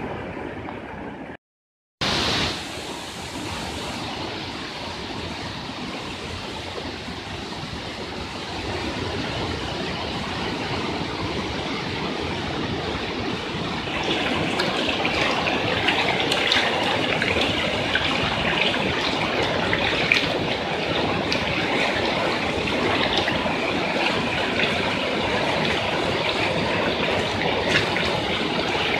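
Fast-flowing floodwater rushing through a street: a steady wash of water noise. It cuts out briefly about a second and a half in, then returns, and is louder and brighter from about halfway on.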